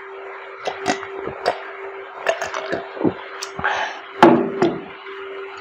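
A person gulping a drink from a glass jug: a run of swallows and small clicks, then a louder knock about four seconds in, over a steady hum.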